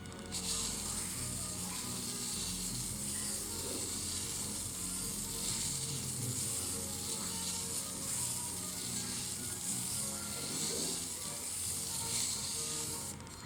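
Steady scraping hiss of a CPU die being sanded on P1500 sandpaper. It starts just after the opening and stops shortly before the end, with background music underneath.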